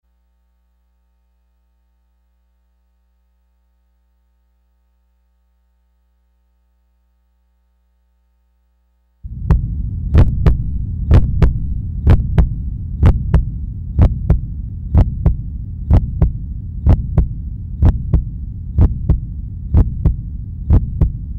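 Near silence for about nine seconds, then a loud low hum starts suddenly. Sharp clicks come through it about once a second, several in quick pairs like a heartbeat.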